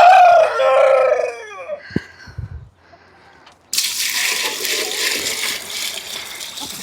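A rooster crows once, the call trailing off over about two seconds. From about four seconds in, water runs steadily, as from a tap or hose filling a waterer.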